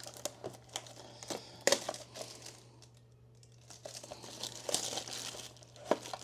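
Plastic wrapping and packaging of a Topps Tier One trading-card box crinkling and rustling as it is opened, in scattered bursts and small clicks with a quieter spell about halfway through.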